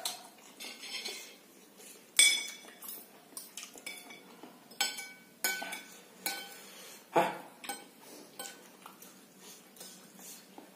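Metal fork and spoon clinking and scraping against a ceramic plate while gathering noodles, in irregular sharp clinks, a few of them ringing briefly.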